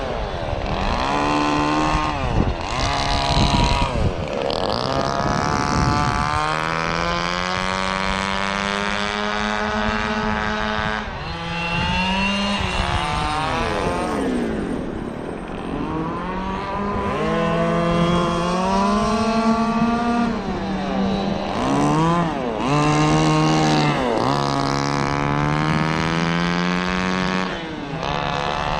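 Small two-stroke gas engine of a 1/5-scale RC truck running hard, its pitch climbing and falling again and again as the truck speeds up, slows and swings past.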